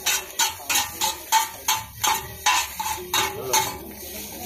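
Two metal spatulas clanging and scraping on a large flat metal griddle as chowmein noodles are tossed and chopped: quick ringing strikes about three a second, which stop about three seconds in.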